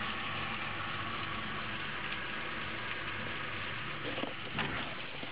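Torrential thunderstorm rain hissing steadily, with a low hum underneath in the first half and a couple of short knocks near the end.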